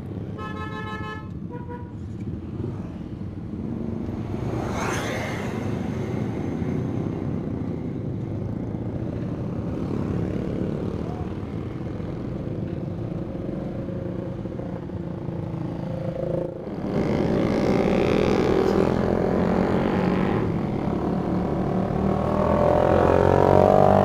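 Motorcycle engines running at the roadside with passing traffic, and a horn tooting once briefly about a second in. Roughly two-thirds of the way through, the engine noise grows louder as the motorcycle pulls away and rides on, rising toward the end.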